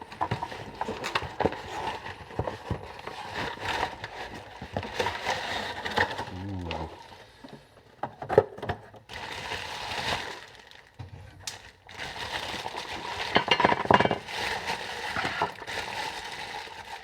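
Packaging being handled as a boxed angle grinder is unpacked: irregular rustling, scraping and knocks, with sharp clicks and light clinks as the box and its parts are moved.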